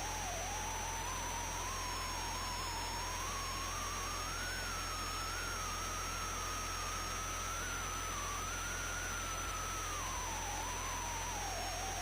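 Electronic, theremin-like tone wavering in pitch over steady hiss, with a thin high whine above it. The tone rises over the first few seconds, holds, and starts to fall near the end.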